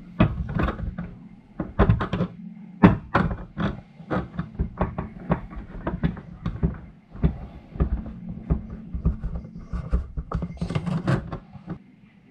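Irregular plastic clicks and knocks from a removed Volvo V70 dashboard cup holder housing being handled and worked on a stainless steel sink drainer, with a steady low hum underneath.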